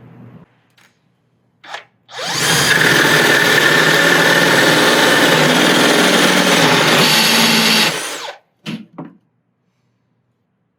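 Stud and joist drill spinning a 2-1/8-inch Milwaukee Big Hawg carbide-tooth hole saw, cutting through a 2x6 and cement board for about six seconds at a steady speed, then stopping. A couple of knocks follow.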